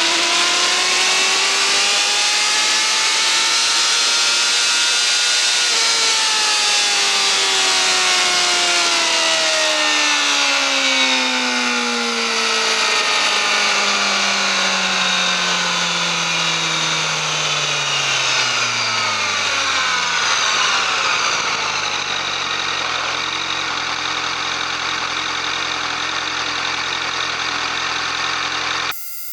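Yamaha YZF-R6 inline-four engine through its stock exhaust. The engine note climbs a little and then falls steadily for about fifteen seconds as the revs drop. It then settles into a steady low running note and cuts off abruptly near the end.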